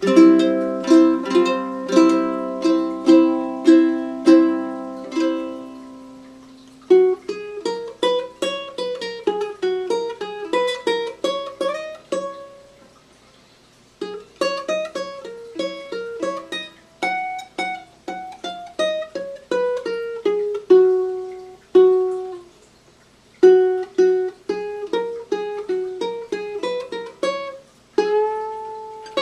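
Tenor ukulele with a curly redwood top and padauk back and sides, played solo. It opens with chords strummed about twice a second for the first several seconds, then moves to a picked single-note melody broken by a few short pauses.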